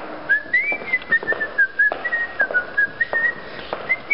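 A person whistling a wandering tune, one high note line that starts about a third of a second in, with footsteps knocking at a walking pace underneath.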